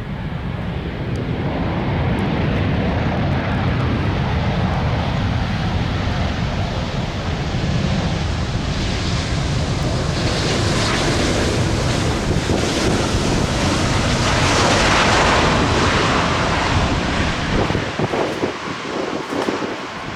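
Jet airliner passing close by. Its engine noise builds for several seconds, peaks past the middle and eases off near the end, with strong wind buffeting the microphone throughout.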